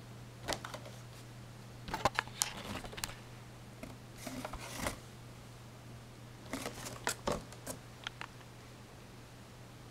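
Cardboard cereal box being handled and turned over: scattered clicks, taps and short rustles in several bursts, over a steady low hum.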